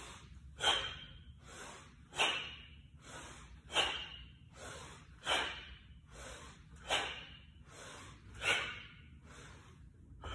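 Forceful rhythmic breathing through a set of one-arm kettlebell swings, with a breath drawn in as the bell is hiked back and another let out as it swings up. A sharp, hissing breath comes six times, about every second and a half, with a softer breath between each.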